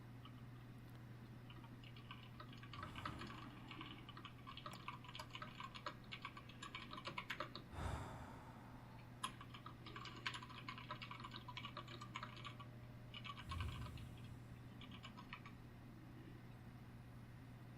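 Typing on a computer keyboard: runs of rapid key clicks with short pauses between them, and three soft breaths in the gaps, over a steady low hum.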